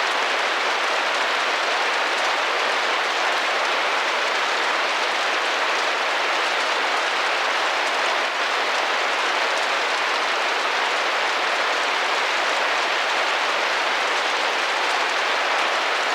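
Rain drumming steadily against a window pane, a dense even patter.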